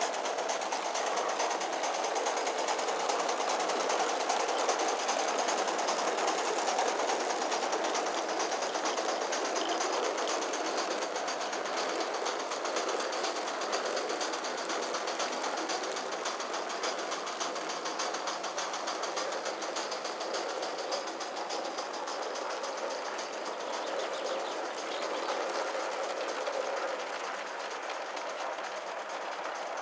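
Gauge 1 live-steam model of a Midland Railway Tilbury tank locomotive running hard, its exhaust beats coming in a rapid, even stream, with the clatter of the train on the track. It starts suddenly at full loudness and eases slightly in the second half.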